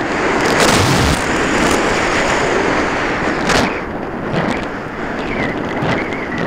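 Loud wind noise buffeting the onboard camera of a ParkZone Radian RC glider in flight, swelling and easing as the plane banks. A faint steady high whine joins about five seconds in.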